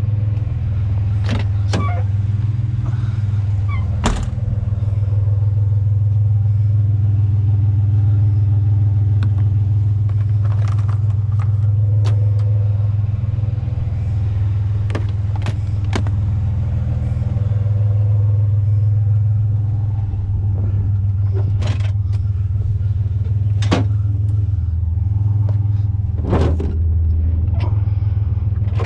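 Truck engine and road noise: a steady low rumble while driving, with scattered sharp knocks and rattles.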